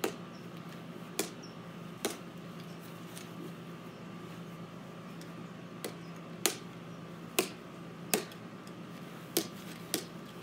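Plastic wiffle ball being bounced off a paddle, each hit a sharp tap. There are about nine taps in an uneven rhythm of quicker low hits and longer high hits, with a pause of a few seconds in the middle.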